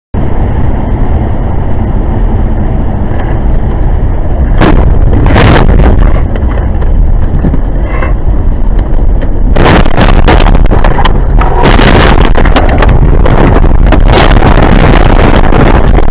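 Loud, low road and engine noise recorded by a car's dashcam on a snow-covered road, with scattered sharp knocks and crackles about four to five seconds in. From about ten seconds in, the crackling and scraping turn dense and nearly continuous as the car runs off the road into roadside brush and snow.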